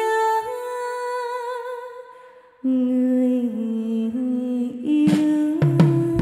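Woman singing long held notes without clear words, with a slight vibrato, amplified through a microphone and PA. The first note fades away, and a lower note starts about two and a half seconds in.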